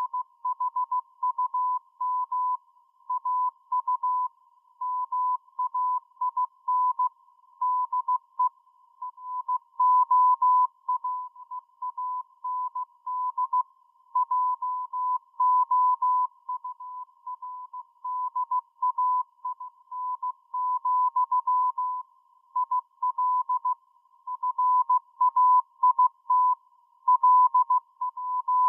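A single tone, about a kilohertz, switched on and off in short and longer pulses with uneven gaps throughout: a Morse code (CW) signal received on a shortwave radio.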